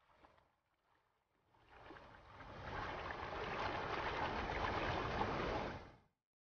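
White water of a river in spate rushing over rocks: a steady rush of water that swells in over the first couple of seconds and cuts off suddenly near the end.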